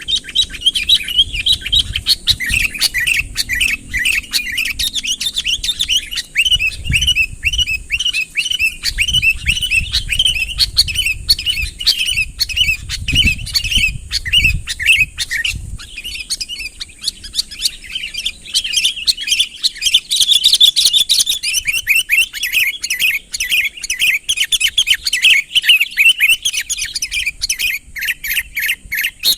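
A sooty-headed bulbul (kutilang) singing non-stop in a rapid run of bubbly chirps. This is the territorial calling used to draw rival birds in. A low rumbling noise sits underneath for about the first half.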